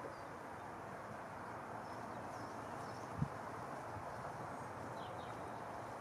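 Steady, gentle rush of a slow river flowing, with a few faint bird chirps and a single brief low thump about three seconds in.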